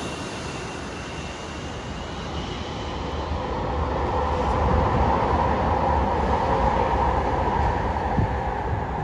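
Business jet on short final, its jet engine noise rolling away after it passes low overhead, then swelling again as a steady rumble about a third of the way in and holding.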